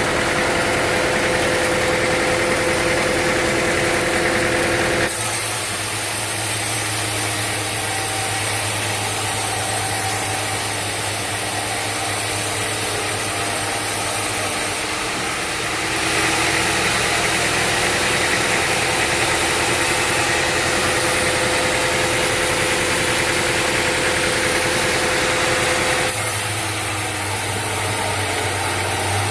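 Sawmill machinery running steadily with a constant drone. The sound changes abruptly about 5, 16 and 26 seconds in, as one stretch of running machine gives way to another.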